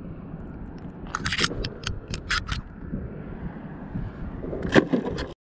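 A quick run of sharp clicks and scrapes about a second in, and one sharp knock near the end, over a steady low rumble: handling noise as a live blue crab is held and put into a plastic bucket.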